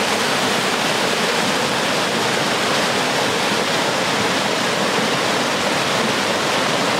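A rain-swollen woodland stream rushing over rocks in white-water rapids: a steady, even rush of water.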